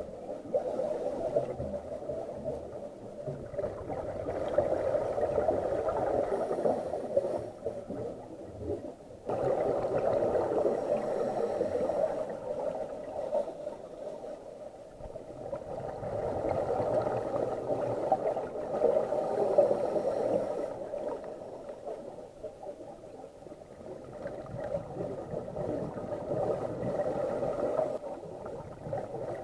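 Scuba diver's regulator breathing heard underwater, with exhaled bubbles gurgling. The sound swells and fades every few seconds with the breaths.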